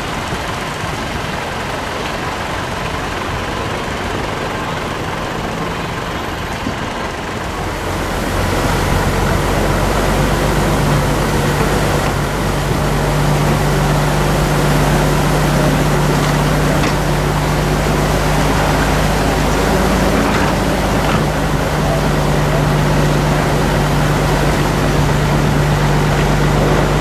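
An engine running steadily, its constant low hum coming in and getting louder about eight seconds in, over a steady rushing noise.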